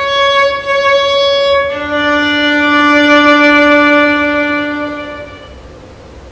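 Solo violin playing slow, long held notes; a lower note comes in about two seconds in, is held, and dies away about five seconds in.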